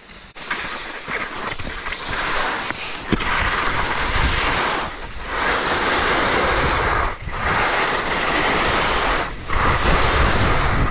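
Skis scraping and hissing over chopped spring snow at speed, mixed with wind rushing over the microphone. The noise builds about half a second in and dips briefly three times, roughly every two seconds, between turns.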